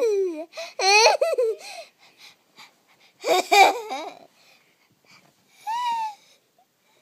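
A young child laughing and squealing in high-pitched bursts: a long run of laughter at the start, another a few seconds in, and a short high squeal near the end.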